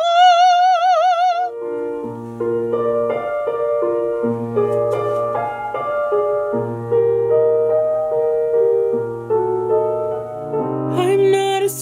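A woman's voice holding one high sung note with wide vibrato, cut off about a second and a half in, then piano chords playing an accompaniment introduction; her singing comes back in near the end.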